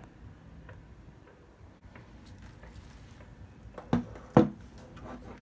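Quiet handling noise with a few light clicks, then two thumps about half a second apart, the second louder. The sound cuts off suddenly just before the end.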